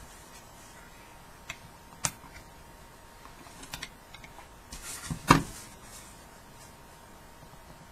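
Crochet hook and yarn being worked stitch by stitch, a soft handling sound with a few light clicks and one sharper knock about two-thirds of the way through.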